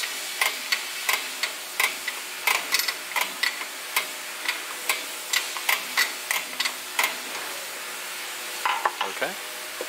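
Drum brake star-wheel adjuster clicking tooth by tooth, about two to three clicks a second, as it is turned with a brake adjusting tool through the backing plate to spread the shoes out toward the drum. The clicking stops about seven seconds in.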